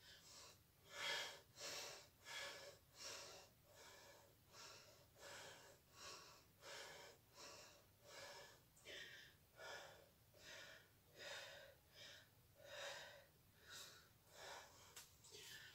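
A person breathing hard in quick, even breaths, close to two a second, while doing wall push-ups.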